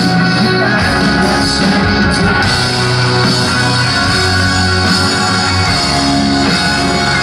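Rock band playing live and loud, with guitars over bass and drums and some singing.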